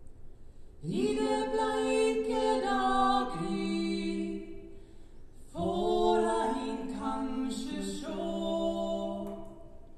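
A man and a woman singing a slow Norwegian Christmas duet in harmony, in two long phrases: the first begins about a second in, the second just past halfway.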